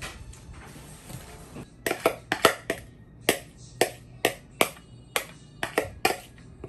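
A series of about a dozen sharp taps or knocks, irregularly spaced, each with a short ring, starting about two seconds in and stopping about a second before the end.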